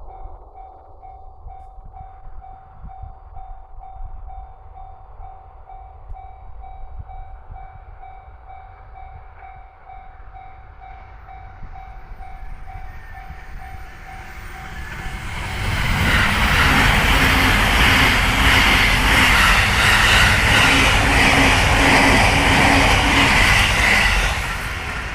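A level crossing alarm bell rings in a steady repeating pattern, then an E259 series Narita Express electric train passes at speed from about 15 seconds in, with a loud rush and wheel clatter that fades away near the end.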